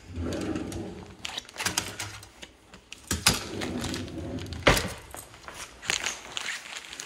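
A kitchen drawer of knives and utensils being opened and rummaged through: a series of clicks, clatters and knocks, the loudest a sharp knock about two-thirds of the way through.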